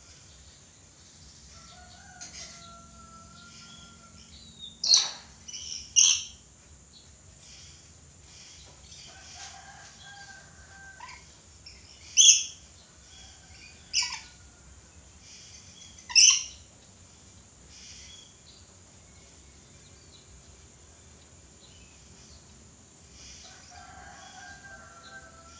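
Red lory (Eos bornea) giving short, harsh, shrill screeches: two close together about five seconds in, then three more about two seconds apart. Fainter whistled notes come in between.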